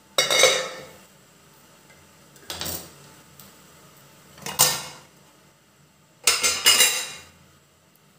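Cookware clattering as a covered steamer pan is opened: a lid is lifted off a kadai and the tiffin box of steamed egg inside is handled, in four separate clanks, the last one double.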